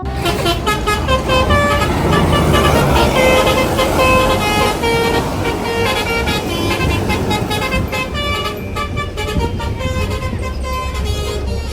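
A bus's 'telolet' multi-tone air horn playing a quick tune of short notes at changing pitches, over the low rumble of the bus engine.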